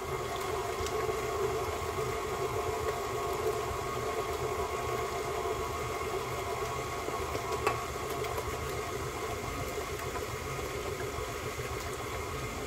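Electric mixer running steadily, beating cream cheese cheesecake batter while eggs are added one at a time. A single light tap comes about three-quarters of the way through.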